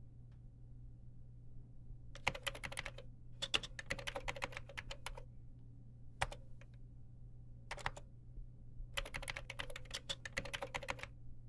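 Typing on a computer keyboard: three quick runs of keystrokes with pauses between them, and a lone key press twice in the middle. A steady low hum runs underneath.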